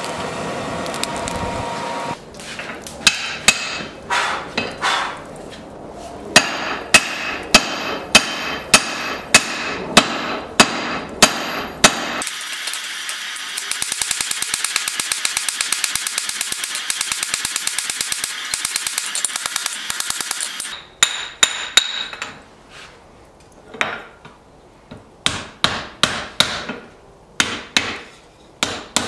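Hand hammer forging a hot bar of O1 tool steel on an anvil: sharp ringing blows of the hammer on the steel. The blows come about one or two a second, then a fast, even run of blows for several seconds in the middle, then slower, irregular blows near the end.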